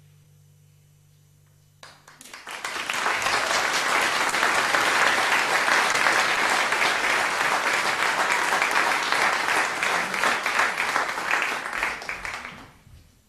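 The last guitar chord fades out faintly, then about two seconds in an audience breaks into applause that goes on for about ten seconds and dies away near the end.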